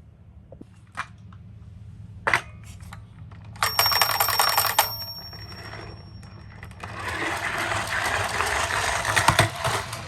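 Toy ambulance minicars clattering and rolling on a slope: a few sharp clicks, then a fast rattle with a thin high ring about three and a half seconds in, and a longer rolling rattle near the end.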